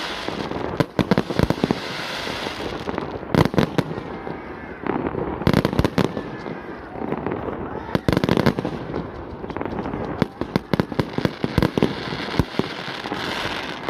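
Fireworks display: shells bursting in volleys every couple of seconds, each volley a cluster of sharp bangs and crackles.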